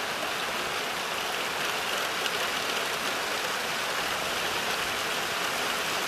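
Steady thunderstorm rain, an even hiss with no thunder.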